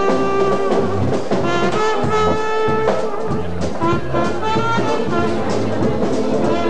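Ballroom dance music led by brass horns, with held melody notes over a bass line that steps along in an even beat.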